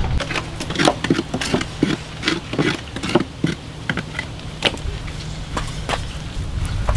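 Irregular light knocks and taps of hands-on work and handling, several a second, over a low steady hum.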